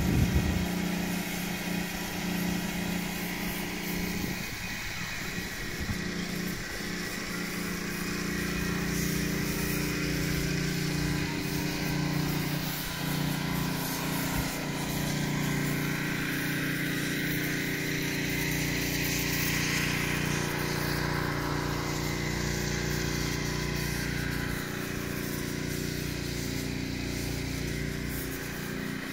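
Engine-powered leaf blower running steadily, used to gather fallen leaves.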